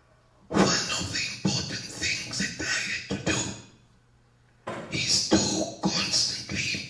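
A man speaking into a handheld microphone, in two stretches with a pause of about a second near the middle.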